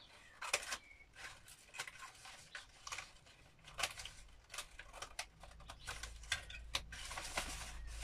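Small scissors snipping into the folded paper pages of a book: irregular short, crisp cuts with paper rustling, the rustle getting steadier near the end as the book is handled.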